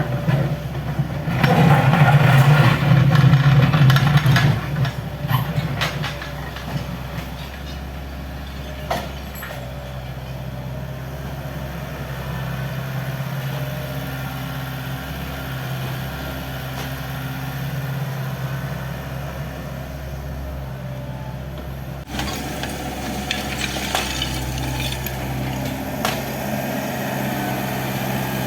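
Hydraulic excavator's diesel engine running steadily while the machine breaks down a building. A loud stretch of crashing and clattering debris comes about two seconds in, followed by scattered knocks and more clatter near the end.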